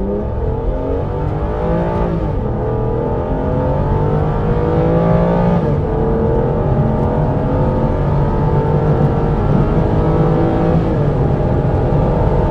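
Aston Martin DB9's 5.9-litre V12 at full throttle, accelerating hard from a slow roll: the engine note climbs steeply, drops back with an upshift about two seconds in and again about six seconds in, then keeps pulling and rising more slowly.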